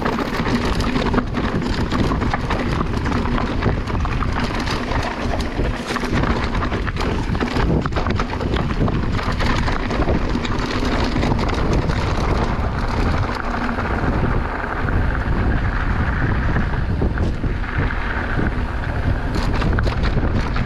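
Wind buffeting the microphone, with the rumble and frequent clicks and rattles of a mountain bike riding over a rough trail.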